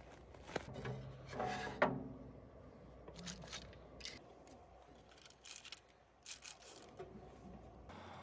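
Scattered small clicks, taps and scrapes of objects being handled, with a short pitched squeak about a second and a half in that ends in a sharp click.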